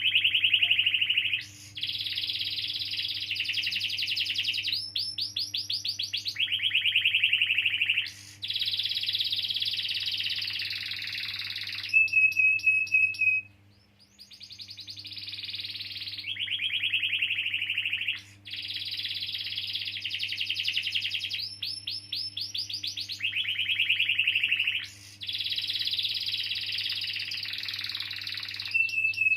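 Domestic canary singing a long rolling song made of fast trills, each phrase running a second or a few seconds before the next one takes over. About halfway through a short steady whistled note is followed by a brief pause, and then the trills start again. A steady low electrical hum runs underneath.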